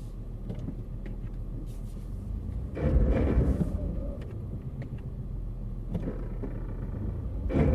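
A 2012 Jeep Liberty's 3.7-litre V6 running under load in four-wheel-drive low while its wheels slip in mud. It surges louder twice, about three seconds in and again near the end. With traction control active, the owner blames it for the crazy weird noises.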